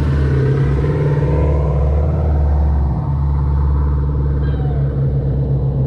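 Sixth-generation Camaro's V8, fitted with headers and running on E85, burbling steadily at low speed as the car rolls along: a deep, even exhaust rumble.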